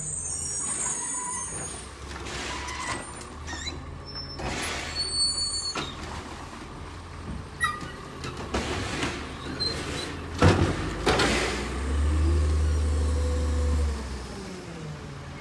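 Labrie Automizer garbage truck with a natural-gas engine at work: engine running under clanks and knocks, a loud bang about ten and a half seconds in followed by a hiss, then the engine working harder for about two seconds with a whine that rises and falls.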